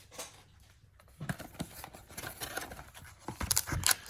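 Packaging of a trading-card box being cut open and handled: scattered scrapes, clicks and rustles that start about a second in and get louder and busier near the end.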